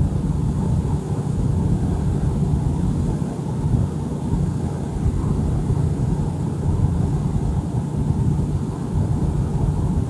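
A steady, deep low hum with no break or change, the strange humming heard every night, whose source is unknown.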